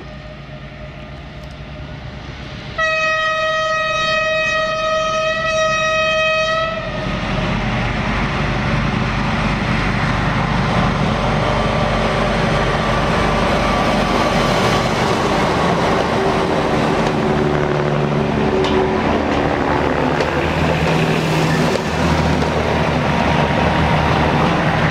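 A diesel train's horn gives one long, steady blast of about four seconds. Then the V26 diesel locomotive and the three-car railbus behind it run past, engines running and wheels clattering on the rails.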